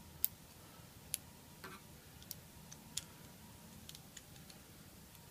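Faint, irregular small clicks and ticks, about eight over five seconds, as a hooked O-ring tool and a rubber O-ring are worked over the threads of a stainless steel actuator shaft.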